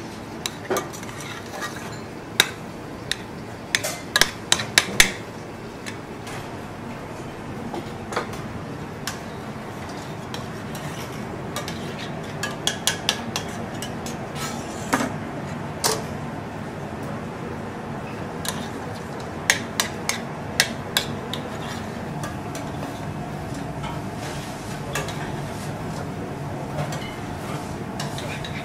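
A metal spoon clinking and scraping against a stainless-steel saucepan as boiled potatoes are mashed and stirred with butter and milk into a purée. The clinks come in quick clusters over a steady background noise.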